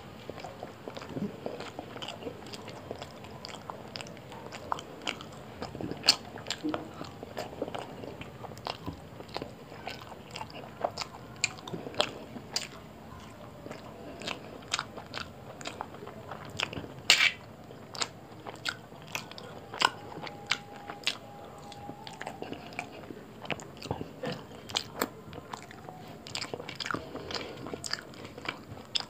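Close-miked chewing and mouth sounds of a person eating roti and chicken curry by hand: irregular wet clicks and smacks, several a second, with one louder click about two-thirds of the way through.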